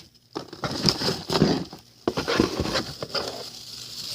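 Fireworks packaging being handled: irregular rustling and crinkling with a few light knocks as the items are picked up and moved.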